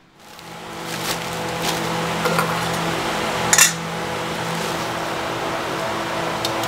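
A metal bowl scooping in a woven plastic sack: rustling and scraping with a few light clinks, the loudest a sharp metallic clink about three and a half seconds in, over a steady hum.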